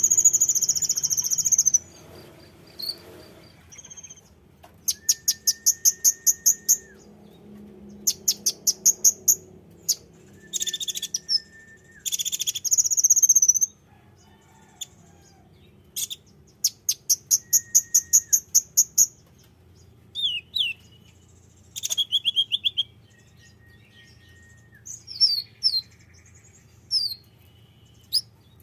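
A konin songbird singing: phrases of fast, high, thin trilled notes lasting one to two seconds, repeated with short pauses, with sharp single chirps between them.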